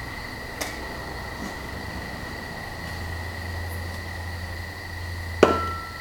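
Steady low hum with a constant thin high whine, and one sharp knock about five and a half seconds in, followed by a brief ringing tone.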